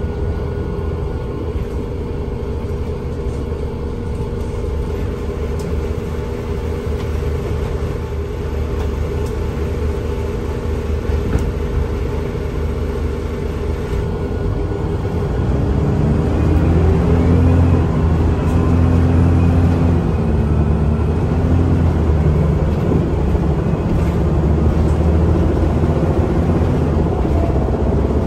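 Scania L94UA articulated bus running on the road, heard from inside the cabin: a steady low engine drone, which grows louder about halfway through as the engine pulls harder, with a rising whine.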